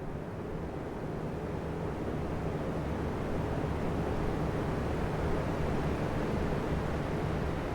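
Three oscillating electric fans running together: a steady airy rush of blades with a low motor hum, swelling gradually over the first few seconds as a fan sweeps toward the microphone.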